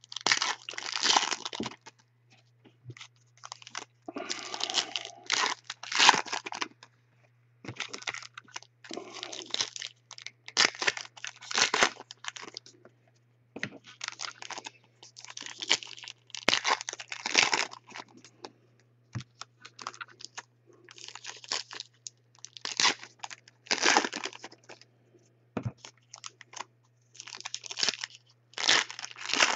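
Foil trading-card pack wrappers being torn open and crinkled, with the cards inside handled and shuffled, in short bursts a second or two apart.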